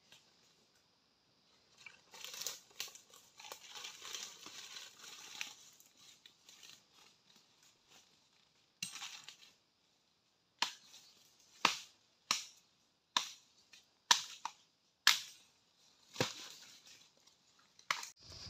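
Dry leaf litter and brush crackling and rustling as undergrowth is handled. In the second half come sharp, separate snaps about a second apart, like dry twigs and sticks being broken.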